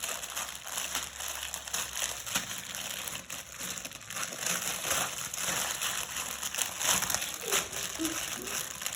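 Plastic packaging crinkling and rustling in irregular bursts as a chocolate mould is taken out of it.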